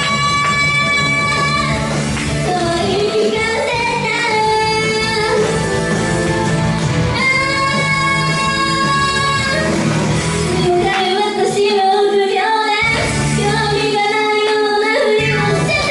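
A female singer performing a J-pop song with a pop band accompaniment, holding long notes. The low accompaniment drops out briefly twice in the second half.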